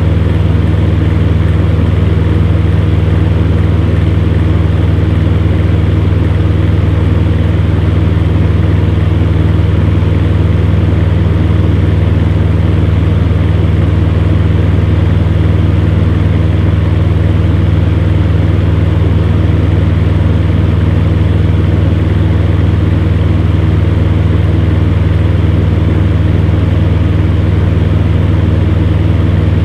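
Electric fan heater running steadily: a constant low hum with an even whirring rush of air from the blower, unchanging throughout.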